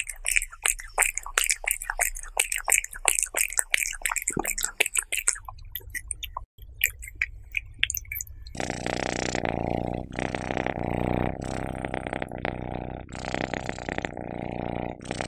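Cat eating wet chicken and egg close up: quick, wet chewing and licking clicks that fade out about five seconds in. About halfway through, a loud, steady rumbling purr begins as a cat is scratched under the chin, broken every second or two by short gaps.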